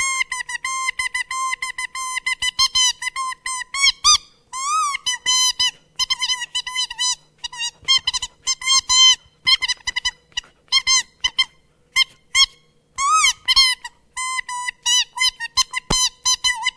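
A clown speaking through a small voice device held at his mouth, which gives a high, squeaky, buzzing voice. It comes in quick short syllables on a fairly fixed pitch, with a few swooping rising-and-falling notes.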